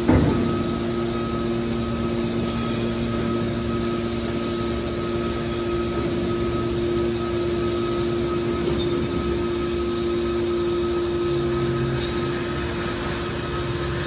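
Hydraulic power unit of a scrap metal baler running with a steady hum of a few held tones while its cylinders swing the lid closed. A single knock comes right at the start, and the tone changes about two seconds before the end.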